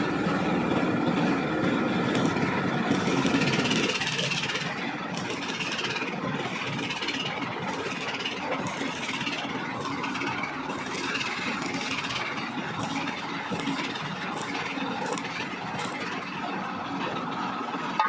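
Electric welding arc crackling and hissing steadily, a dense irregular crackle that is a little fuller for the first four seconds.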